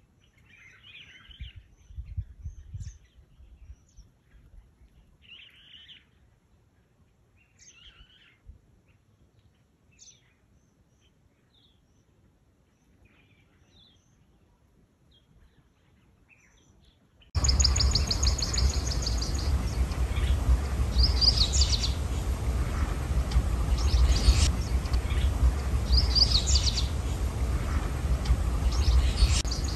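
Wild birds chirping and calling in short phrases, faint at first. About halfway through the level jumps to louder birdsong over a steady low rumble.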